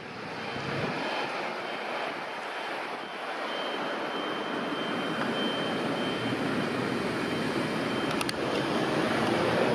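A vehicle approaching on a city street: a steady rushing noise that grows slowly louder, with a faint high whine through the middle and a couple of sharp clicks near the end.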